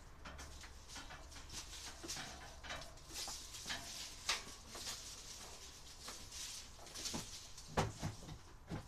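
Irregular small clicks, knocks and rustles of objects being handled and moved, with one louder thump about three-quarters of the way through.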